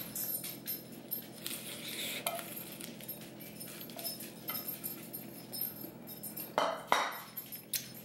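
Eating a lettuce-wrap taco: crisp lettuce crackling and crunching as it is bitten and chewed, with scattered light clicks and clinks of a plastic bowl. Two louder sharp crunches or knocks come near the end.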